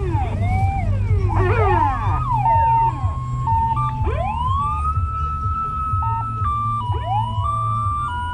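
Several emergency-vehicle sirens sound at once, some wailing up and down and others switching back and forth between two or three steady tones, over a low, steady engine rumble. New wails wind up from low about four and seven seconds in.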